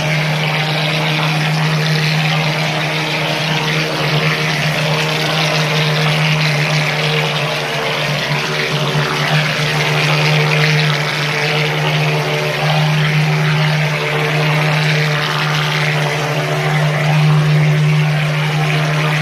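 Mechanized plastering machine running continuously: a steady low hum under a loud, even hiss.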